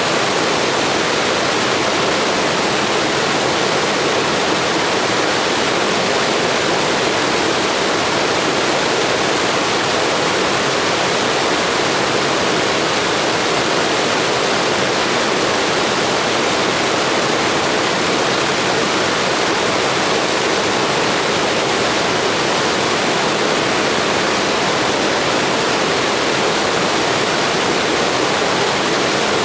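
Steady blizzard wind: an even, unbroken hiss with no gusts or lulls.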